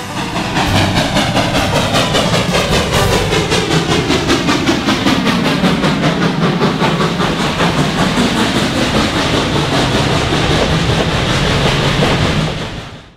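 Steam locomotive and its passenger train passing close by: a fast, steady rhythm of beats with a rushing noise whose pitch sweeps down as it goes past. The sound fades out quickly near the end.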